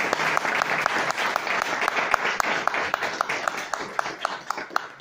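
Audience applauding: a dense patter of many hands clapping that thins to a few scattered claps near the end.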